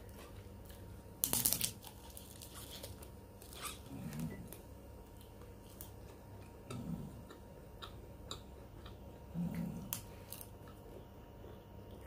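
Close-up eating sounds. A kerupuk cracker is bitten with one sharp crunch about a second in, then chewed, with a few small crunches and clicks and some short, low mouth sounds between them.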